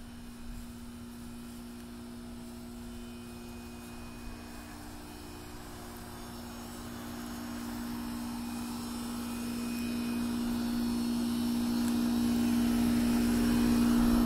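Outdoor central air-conditioner condenser unit running: a steady hum with the rush of its top fan. It grows much louder over the second half.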